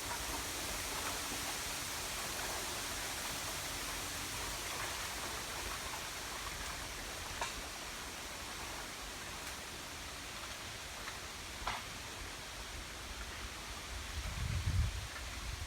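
Steady rustling hiss of wind through a bamboo grove, with a few faint ticks and a brief low rumble near the end.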